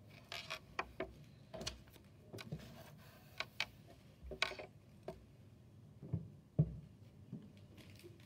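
Scattered light clicks and knocks at irregular intervals, about fifteen in all, some sharp and some dull, with the loudest dull knock about six and a half seconds in.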